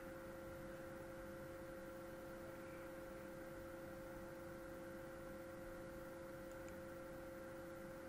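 Faint steady hum of a few constant tones over light hiss: the recording's background noise, with no other event.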